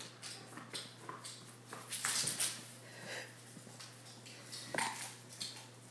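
Scattered light clicks and taps of a Dalmatian running on a hardwood floor after a thrown ball, with a louder cluster about two seconds in and another near the end.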